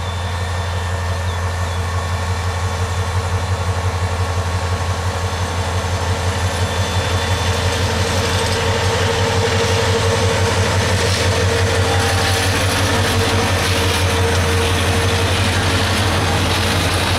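Bangladesh Railway diesel locomotive pulling a train out of a station: the engine's steady low throb with a humming tone above it, and the rolling noise of the train swelling as it passes.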